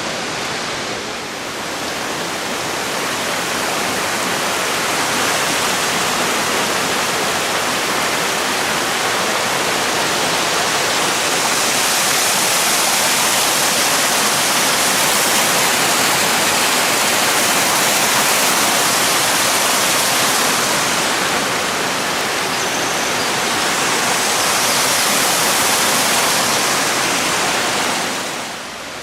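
Steady rush of a mountain waterfall and its stream, swelling a few seconds in and dropping off near the end.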